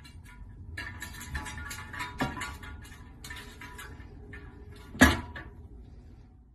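A cat's paws tapping and scratching on a glass tabletop in quick runs of small taps, with a sharper knock about two seconds in and a louder bump about five seconds in.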